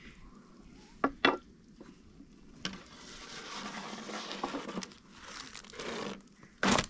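A stack of thin, dry flatbreads crinkling and rustling as a long wooden stick lifts and turns it on a domed metal griddle. Two sharp knocks come about a second in, and a louder slap comes near the end.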